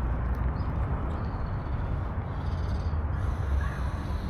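Steady low rumble of city traffic, with a few faint bird calls over it.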